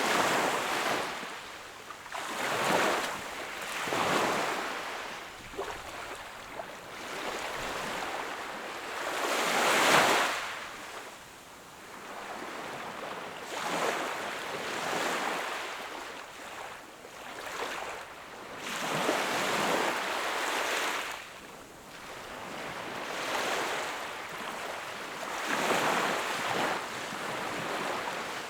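Sea waves washing onto the shore, one surge of rushing water after another every few seconds, the loudest about a third of the way through.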